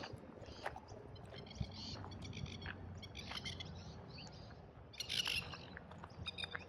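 Birds calling overhead in quick runs of short chirps, a louder run about five seconds in.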